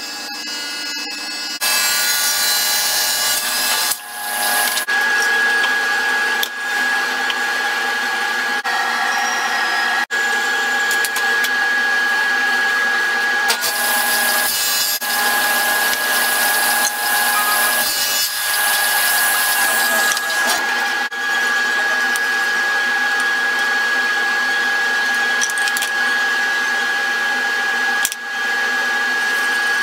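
Delta Unisaw table saw running with a steady high whine while boards are ripped along the fence, starting up about a second and a half in.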